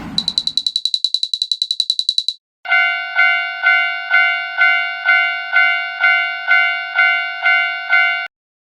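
Railroad crossing warning bells. First comes a rapid, high-pitched ringing at about ten strikes a second for roughly two seconds. After a brief break, a lower clanging crossing-bell tone repeats about twice a second, then cuts off shortly before the end.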